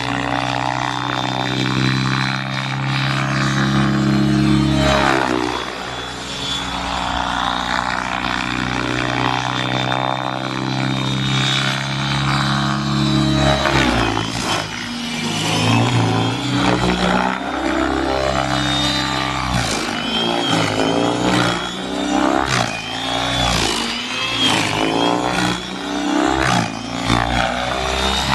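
Electric Align T-Rex 600E RC helicopter in flight: rotor blades and motor whine. Its pitch holds steady for the first half, then swings rapidly up and down as the helicopter is thrown through aerobatic stunts.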